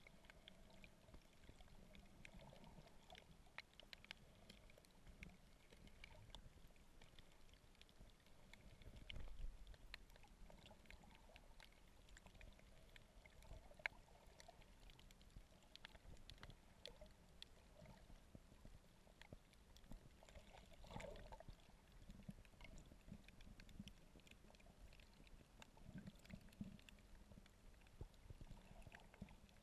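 Faint, muffled underwater sound picked up through a camera's waterproof housing: a low water rumble with a scattered crackle of small clicks.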